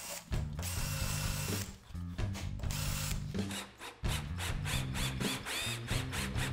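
Cordless drill-driver running in stop-start bursts, driving a threaded insert into plywood with its screw, under soft background music.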